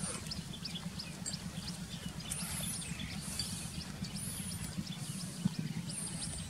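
Outdoor ambience around a goat herd in a grassy field, with no bleating. A high chirping call repeats about every two seconds, over a steady low hum and scattered small clicks.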